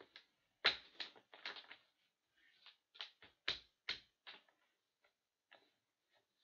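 Hockey trading cards being handled off-microphone: a run of irregular, crisp clicks and rustles, about a dozen in the first four and a half seconds, then only a few faint ones.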